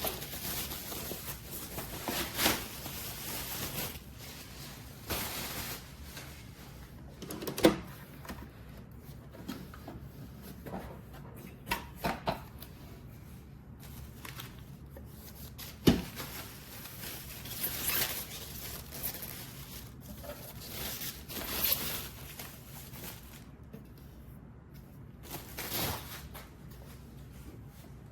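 Scattered clicks, knocks and brief rustles of objects being handled, with two sharp clicks, one about eight seconds in and one about sixteen seconds in.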